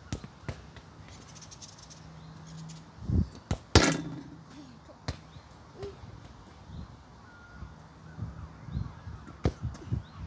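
Outdoor ambience with a single sharp knock about four seconds in, with scattered low thumps and a few faint bird calls.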